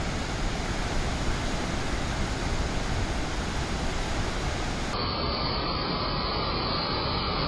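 Floodwater rushing: a swollen, muddy river in spate pouring through the piers of a barrage, a steady, even rush of water. About five seconds in it changes abruptly to a duller rush of another flooded mountain river.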